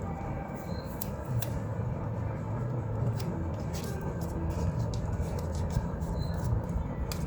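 Scattered light clicks and taps of hand work on engine parts, over a steady low hum.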